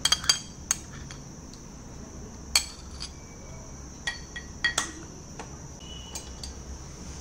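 Metal spoon clinking and tapping against ceramic dishes as paste is scraped into a bowl: a dozen or so scattered sharp clinks, some with a brief ring, over a steady faint hiss.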